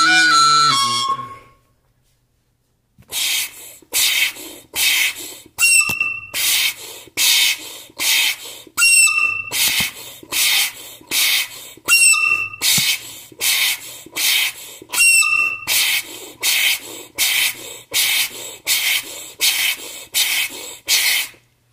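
A soprano recorder note ends about a second in. After a short pause comes a steady run of breathy, unpitched puffs blown through the recorder, about two a second, with a brief whistly squeak of a note on roughly every fourth puff.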